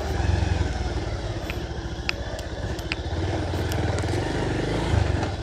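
Motorcycle engine running steadily under way, with a couple of sharp clicks of rattle about two and three seconds in.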